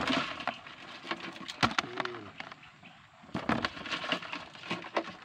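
Scattered sharp clicks and scratches of freshwater crabs' legs and claws on a plastic tub, with a faint short low call about two seconds in.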